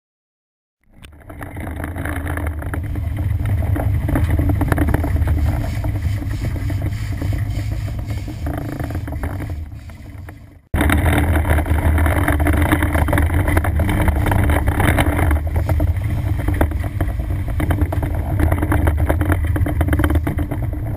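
Sportfishing boat's engines running steadily underway, a loud low drone mixed with the rushing hiss of water and wake. It fades in about a second in, and about halfway through it drops out and comes straight back at once.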